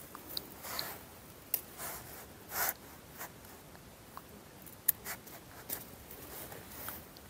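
Faint scattered clicks and short rustles of hands handling fishing tackle as a float is fixed to the line.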